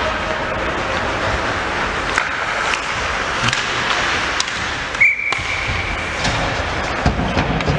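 Ice hockey game sound in an arena: skates scraping and sticks and puck clacking, with scattered sharp knocks. About five seconds in, a referee's whistle sounds as one steady tone for about a second.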